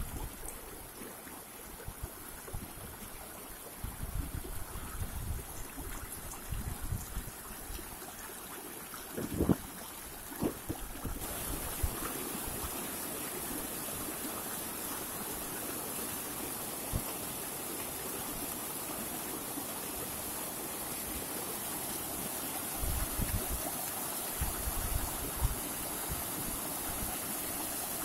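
Small, clear mountain stream rushing and splashing over rocks, with a little cascade between boulders; the water grows louder about a third of the way in. A few low thumps on the microphone stand out over the water.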